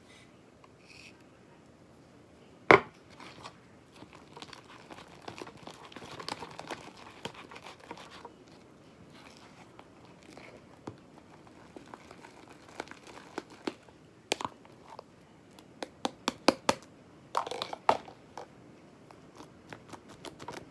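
Sticky homemade glue-and-detergent slime being mixed in a bowl: crackling, crinkly squelching, with one loud knock about three seconds in and a run of quick sharp clicks near the end.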